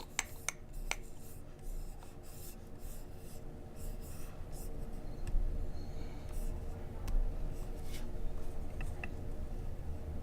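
Fingers rubbing and sliding on a laptop trackpad, with a few sharp clicks in the first second and scattered light taps later, over a faint steady hum.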